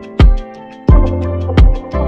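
Background music with a steady beat and low, sustained bass notes.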